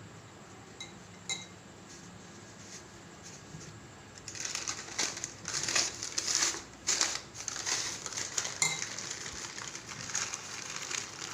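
Butter paper crinkling and rustling in uneven bursts as a shawarma roll is wrapped in it, starting about four seconds in, with a few light clinks before it.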